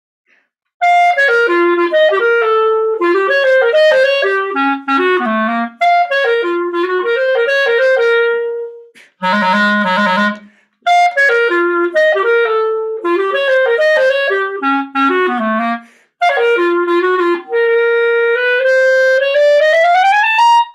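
Unaccompanied Leblanc Opus II clarinet playing a melodic passage in several phrases, with brief breaks between them, ending on a long note that glides steadily upward.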